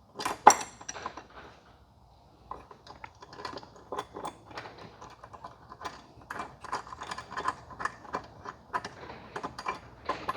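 Small steel hardware clinking and clicking as a lock nut is fitted onto a bolt by hand. There is a loud sharp clack about half a second in, then after a short pause a long run of quick, irregular clicks.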